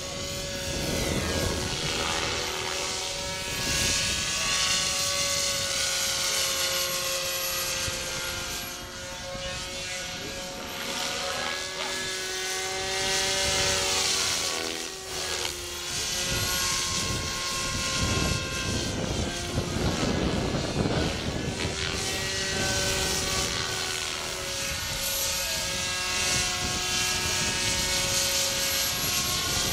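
Radio-controlled model helicopter flying, its rotor and motor whine rising and falling in pitch as it manoeuvres, with swells of rotor noise as it passes.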